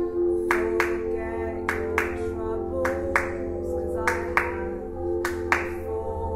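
A woman singing over held cello notes, with sharp hand claps keeping a steady beat, often two in quick succession about a second apart.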